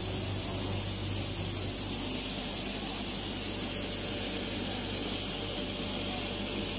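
A small automatic flour milling machine running: a steady mechanical hum under a continuous high hiss.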